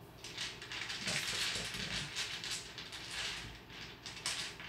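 A tarot deck being shuffled and handled: a run of papery swishes and flicks of cards sliding against one another.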